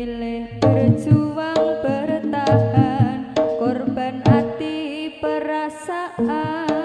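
Live jaranan gamelan music: kendang hand-drum strokes at an irregular, driving pace under a wavering, vibrato-laden melody line.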